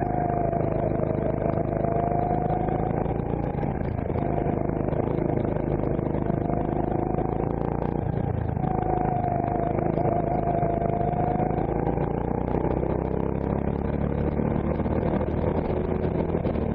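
CRG Centurion rental kart's engine running hard, heard close up from onboard. Its pitch falls and rises twice as the driver eases off into corners and accelerates out again.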